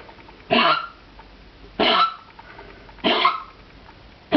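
Dog coughing from kennel cough: short hacking coughs repeated at an even pace, about one every second and a quarter, four in all, the last just at the end.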